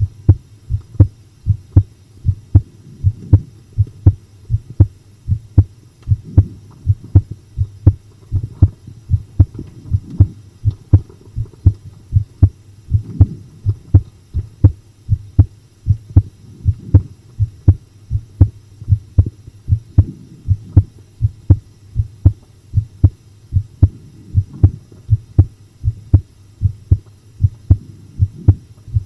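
Human heartbeat heard up close: a steady, pounding lub-dub rhythm, each beat a pair of short, low thumps over a faint steady hum.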